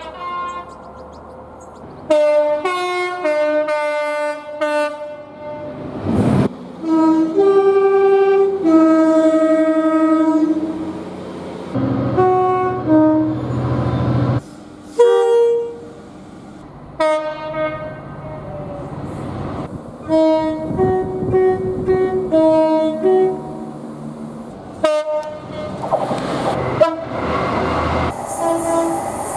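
Train horns from several trains, cut one after another: bursts of short blasts in quick succession and longer held blasts sounding chords of several notes. Near the end a passing train's rushing rail noise takes over.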